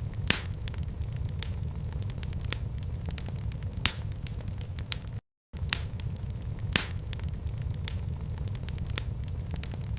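Wood fire crackling in a fireplace: a steady low rumble of flames with scattered sharp pops and snaps. The sound cuts out completely for a moment about five seconds in.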